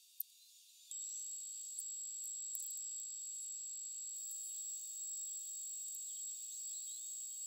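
A sharp click, then about a second in a steady high-pitched whine comes on abruptly and holds: electric dog clippers running.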